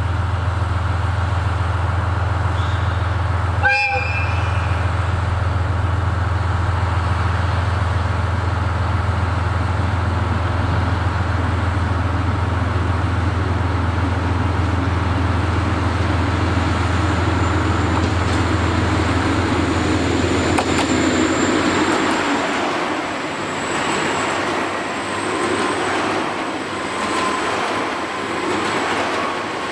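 Diesel train engine idling with a steady low hum, and a short horn toot about four seconds in. About twenty seconds in the hum drops away and rolling rail noise takes over, with faint high squeals.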